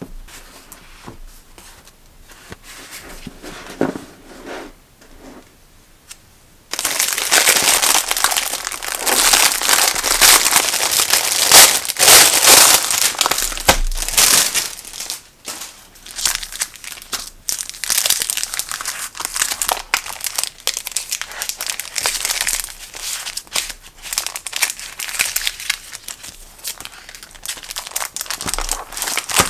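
Soft rustles and taps of paper sheets for the first few seconds, then, starting suddenly about seven seconds in, loud, continuous crinkling of clear plastic packaging and sleeves as a reusable sticker album set is unwrapped and handled.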